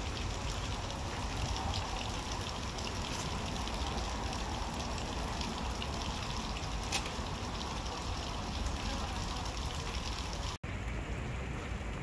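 Steady rain falling, an even hiss with scattered faint drop ticks. It cuts out for an instant about ten and a half seconds in, then resumes.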